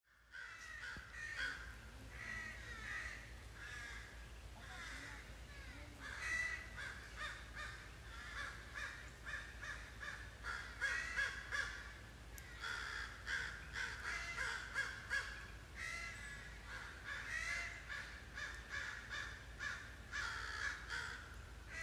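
Crows cawing over and over, a long run of short repeated calls, some overlapping.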